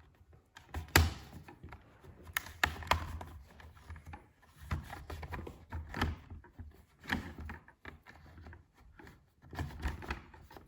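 Plastic bottom case of a laptop being pried off with a pry tool: a series of sharp clicks and snaps as the case's clips come loose, the loudest about a second in.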